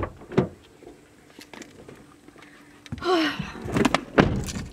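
Thumps, clicks and rustling of someone getting into a car's driver's seat through the open door. Two sharp knocks come near the start, a rustle about three seconds in, and a cluster of heavier thumps around four seconds in.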